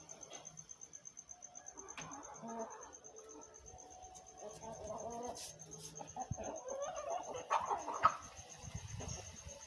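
Chickens clucking, with the calls growing busier and louder from about four to eight seconds in.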